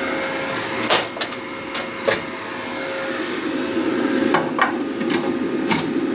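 Stainless steel tissue-processor baskets and their wire handle clinking and knocking against the steel retort as they are set back in, about seven sharp metal clicks spread irregularly, over a steady background hum.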